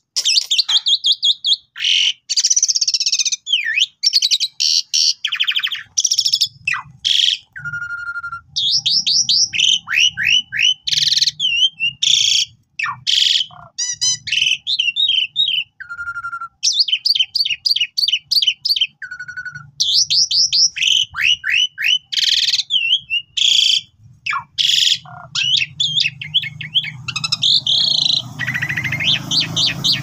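Asian pied starling (jalak suren) in full, persistent song: a fast, varied run of chirps, rising sweeps and harsh notes, broken by a few short steady whistles and brief pauses.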